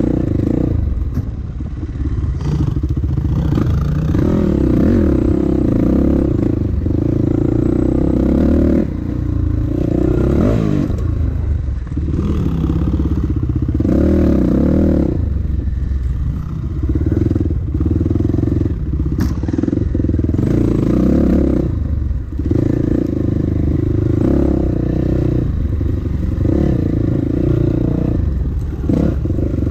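Dirt bike engine ridden hard along a rough single-track trail, its pitch rising and falling with the throttle and dropping off briefly every few seconds between bursts of power.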